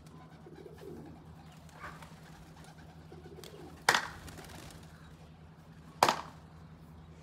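Domestic pigeons cooing softly, with two sharp snaps about two seconds apart, the first about four seconds in.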